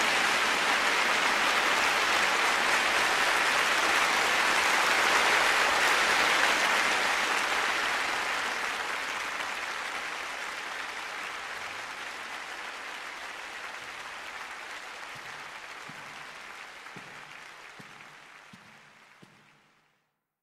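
A steady rushing noise without pitch, loudest about five seconds in, then slowly fading away to nothing near the end.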